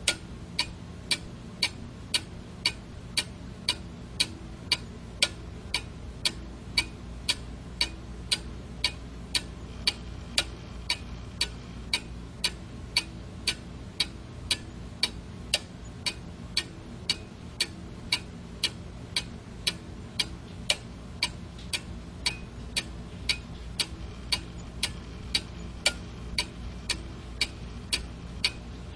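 A clock ticking steadily, about two even ticks a second, over a low steady hum.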